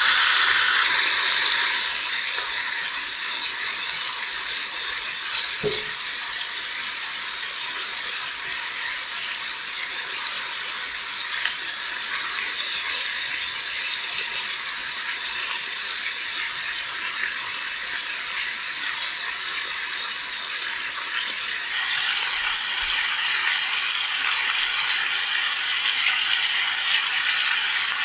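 Food sizzling in a hot pan on the stove, a steady hiss that grows louder about three-quarters of the way through, with a single light knock near the start.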